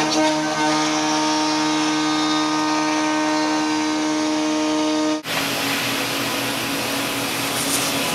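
CNC router spindle milling aluminum extrusion: a steady, high machining whine made of several even tones. About five seconds in it switches abruptly to the noisier, hissing run of a 5-axis router spindle cutting fiberglass composite (FRP).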